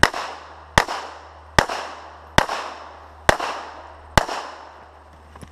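Six 9mm shots from a Glock 34 competition pistol, fired at an even pace a little under a second apart, each followed by a short echo off the range berm.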